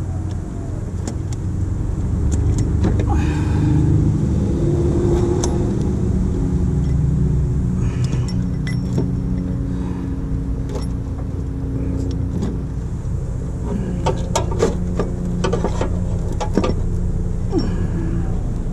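Scattered metal clicks and clinks of a hand wrench and bolts while the AC compressor's mounting bolts are worked by hand, over a steady low hum.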